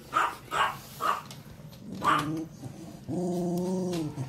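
Dogs barking at play: four short sharp yaps in the first two seconds, then a steady growl lasting about a second near the end.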